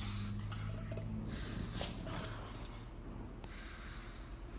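Pug snorting through its nose while holding a stainless steel food bowl in its mouth: a few noisy breaths, with a sharp click about two seconds in.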